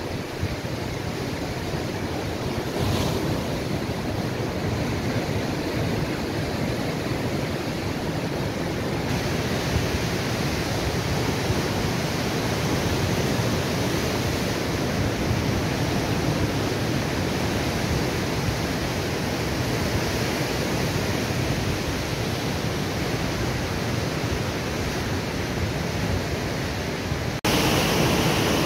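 Pacific surf breaking and washing over shore rocks, a steady rush of waves. It grows louder and brighter near the end.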